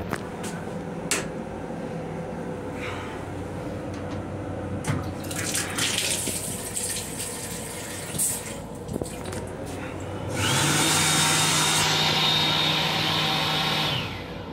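Sensor faucet of a train restroom sink running water into the basin. A few seconds later the sink unit's hand dryer blows for about four seconds, its motor spinning up at the start and cutting off suddenly.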